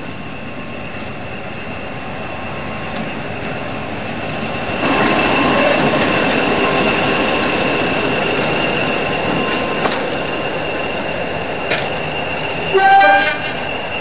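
Diesel locomotive engines running, with a steady high whistle over the engine noise, which gets louder about five seconds in. About a second before the end there is a short locomotive horn blast.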